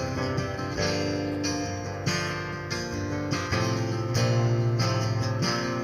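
Background music: an instrumental passage of a song, guitar chords over a bass line, with no singing.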